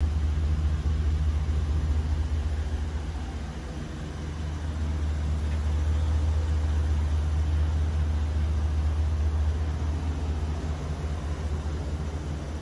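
Chevrolet Silverado 3500's 6.0-litre gas V8 idling: a steady low rumble that fades slightly and swells again.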